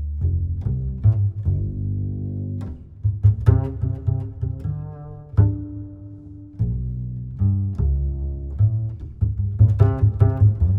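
Instrumental background music built on deep notes, some held and some sharply plucked, changing every second or so.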